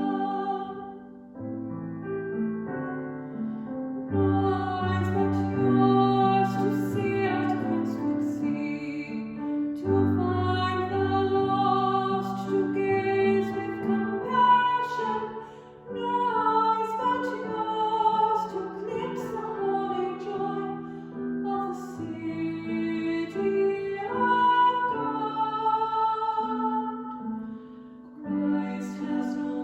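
Slow hymn-like music: held chords that change every second or two over a moving bass line, with a melody above.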